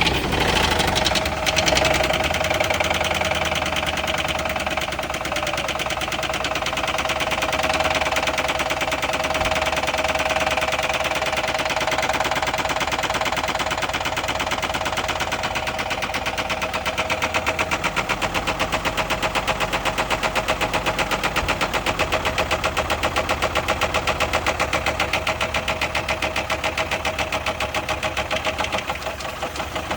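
Chevy HHR's four-cylinder engine running with a rapid, steady rod knock, the sign of a worn connecting-rod bearing.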